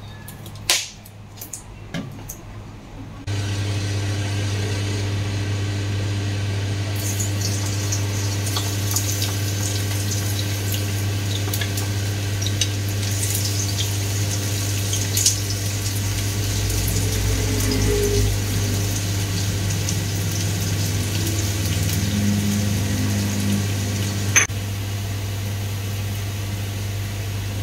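Chopped onions sizzling and crackling in hot oil in a wok, stirred with a wooden spatula, starting suddenly about three seconds in. Under it runs the steady hum of the range hood fan.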